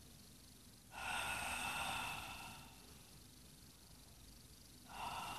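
A girl breathing out audibly twice in soft sighs: a long one about a second in and a shorter one near the end.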